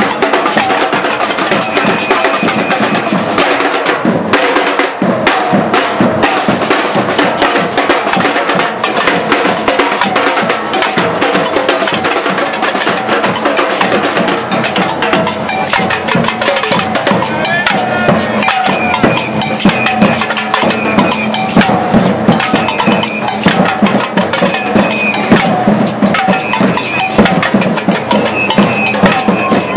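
Batucada drum group playing while marching: loud, dense, continuous drumming with no breaks.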